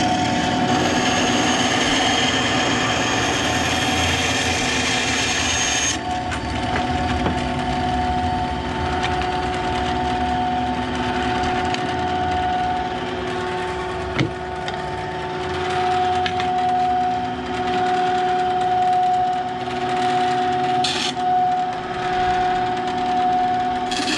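Benchtop band saw running steadily and cutting a white-faced board, a constant motor hum under the hiss of the blade. There is a sharp tick about 14 seconds in.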